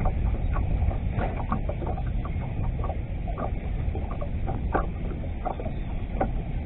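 Wind rumbling on an open-boat microphone, with water lapping against the bass boat's hull in small, irregular splashes.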